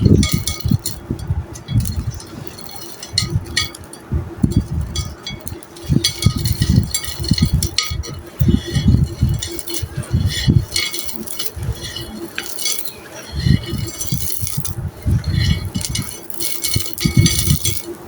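Dry chunks of coloured, stone-textured sand-clay being crushed and crumbled, with crisp crackling, repeated low thuds and hard bits clinking.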